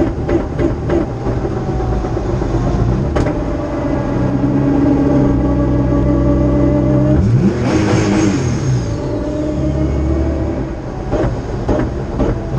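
Race-prepared Nissan March's engine heard from inside the cabin, driving hard with the revs rising and falling. Around eight seconds in the pitch swings with a burst of hiss, and a few sharp cracks come near the start and again near the end.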